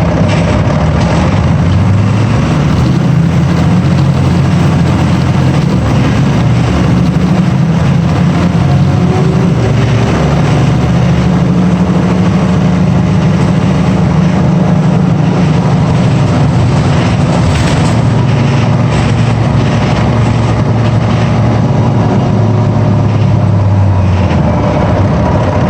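Bus engine running loudly under way, its drone stepping up and down in pitch as the bus speeds up and slows.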